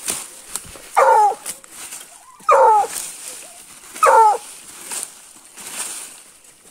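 A hunting dog barking at quarry holed up in its burrow: three short, sharp barks about a second and a half apart, with twigs and leaf litter crackling between them.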